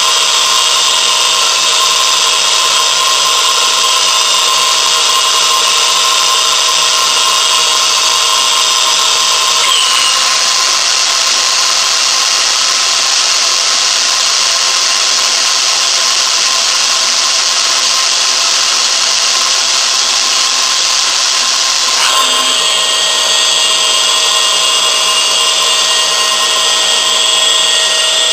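A motor-driven machine running loudly and steadily, with several steady whine tones over a hiss. About ten seconds in the hiss grows stronger and higher, and near twenty-two seconds it drops back.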